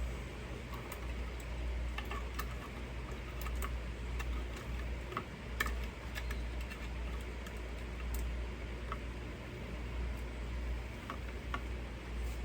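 Scattered light clicks and taps of small metal hardware being handled, with screws, spacers and a bracket being fitted by hand, over a steady low hum.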